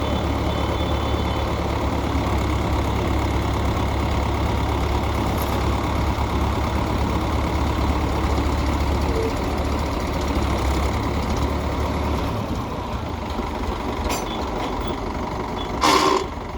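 Heavy diesel engine running steadily with a deep rumble that drops off about twelve seconds in, leaving a lighter engine sound. Near the end there is one short, loud clatter.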